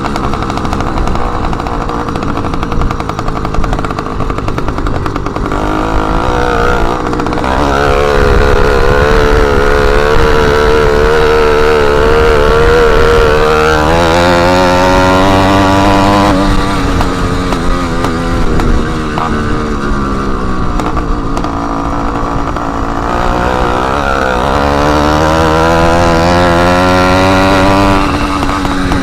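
Motorized bicycle's small engine running loud with its exhaust tip removed. Its pitch rises and falls several times as the throttle is opened and eased off.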